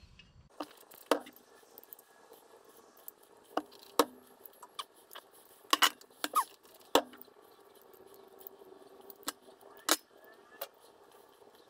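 Handling noise from rubber fuel hose and a black air-cleaner backing plate: about a dozen light, scattered clicks and knocks at irregular moments as the hose is worked through the plate's rubber grommets.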